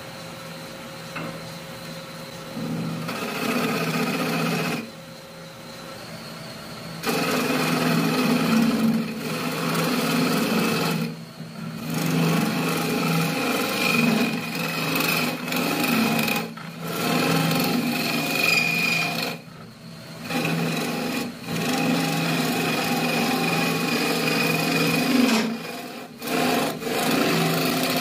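Hook tool cutting inside a wooden vessel spinning on a wood lathe: a loud, rough scraping in repeated passes of a few seconds each. Between passes there are short pauses where only the lathe's steady hum is left, and the cutting stops near the end.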